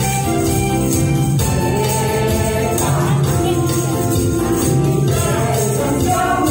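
Upbeat song on a backing track with a woman singing into a microphone, and hand tambourines jingling in time with the beat.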